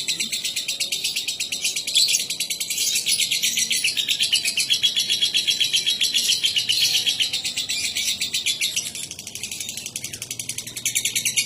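Lovebird singing a long, unbroken, rapid chattering trill: the sustained 'ngekek' song that lovebird keepers prize. It softens briefly about nine seconds in, then picks up again.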